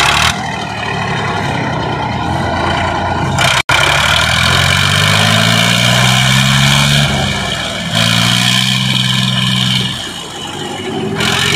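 Two Swaraj tractors, an 855 and a 744 XT, pulling against each other in a tug-of-war, their diesel engines labouring under full throttle. The engine note climbs, dips briefly about halfway through, picks up again and eases off near the end.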